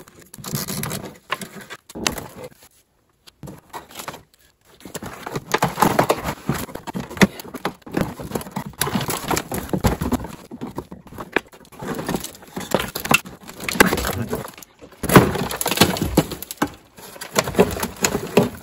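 2008 Chevy Equinox's plastic rear wheel-well liner being flexed and pulled away from the body, with its caked dirt scraping loose: a run of crackling scrapes and sharp clicks. The first few seconds are sparser, with a brief quiet spell, and the crackling turns dense from about five seconds in.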